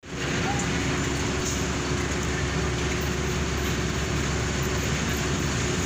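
Diesel engines of queued buses and trucks idling together: a steady low drone with a faint steady hum, starting abruptly and holding even throughout.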